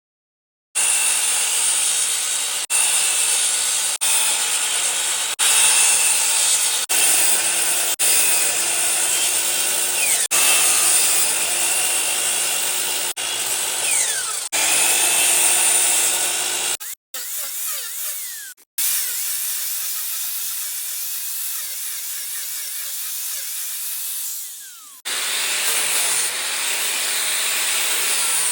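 Power tools cutting and grinding wood in a string of short clips, the sound changing abruptly every second or two, with a quieter stretch past the middle.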